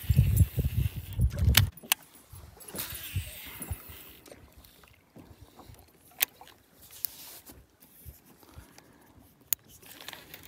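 Casting and retrieving a spinnerbait on a baitcasting reel from a kayak: a heavy low rumble of handling for the first second and a half, then a quiet stretch broken by a few sharp clicks and knocks.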